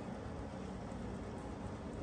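Steady low background hum and hiss of ambient noise, with no distinct events.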